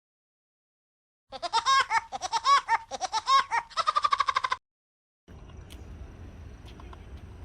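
Edited-in cartoon laugh sound effect: a quick run of high 'ha' syllables, each rising and falling in pitch, ending in a fast trill, set between stretches of dead silence. Faint outdoor background with light ticks comes in near the end.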